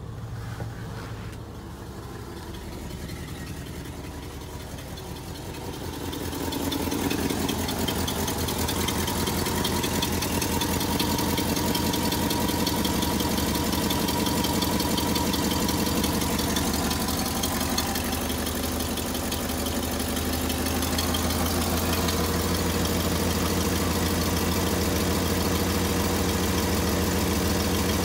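Ford F100's 352 cubic-inch FE V8 idling steadily just after a cold start, with the choke partly out. It is heard first from inside the cab, then louder and closer from about six seconds in, at the open engine bay.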